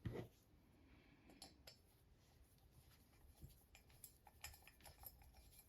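Near silence with a few faint, light metal clicks scattered through it, from a screw with lock washers being screwed back into a brass hand bell's handle.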